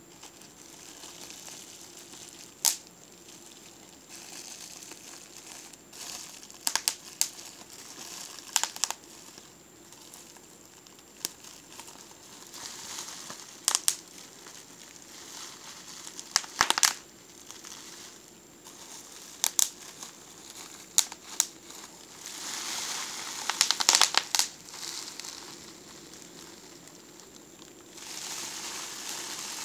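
Bubble wrap being squeezed and crumpled by hand: soft plastic crinkling with sharp pops of bursting bubbles scattered through it, several bunched together about three-quarters of the way through.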